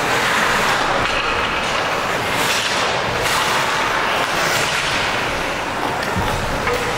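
Ice hockey rink noise: a steady hiss of skates cutting the ice and arena din, with a few brief scrapes and a low knock about six seconds in as players battle along the boards.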